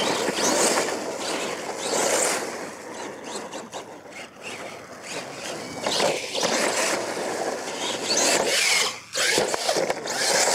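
Radio-controlled monster truck running on a dirt course: its motor whines up and down with the throttle and its tyres scrape through the dirt, and near the end the truck tumbles over.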